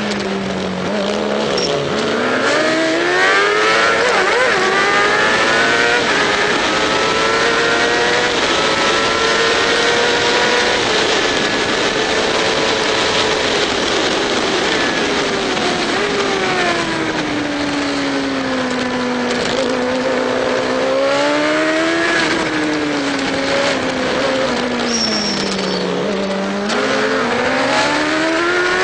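Racing motorcycle engine at high revs, heard onboard with heavy wind noise. The revs drop as it slows into a corner just after the start, climb back up and hold high along the straight, then dip and rise twice more in the second half.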